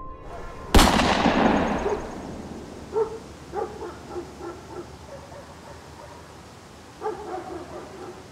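A single gunshot about a second in, with a long echoing tail, followed by a dog barking several times in short bursts, then again near the end.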